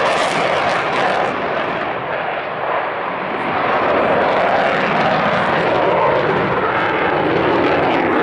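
F-16 fighter jet's engine, a loud rushing jet noise from the aircraft in flight. It dulls and drops a little about two seconds in, then builds back up.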